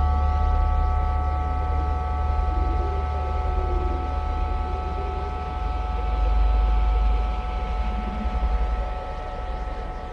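The steady ringing tones of a struck metal meditation instrument, like a gong or singing bowl, held over a deep, continuous rumbling drone that stands for Earth's electromagnetic 'sound'. The mix softens a little near the end.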